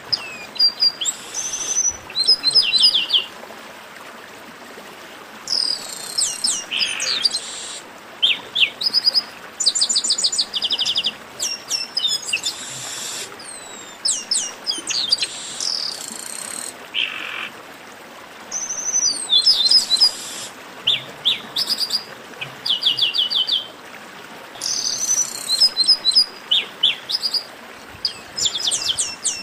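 Chestnut-capped blackbirds singing: bouts of rapid trills and downward-sliding whistled notes, repeated every few seconds over a steady background hiss.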